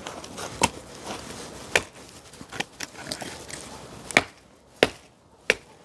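Chopping on a wooden stump: a series of sharp, separate knocks on wood, a little under one a second.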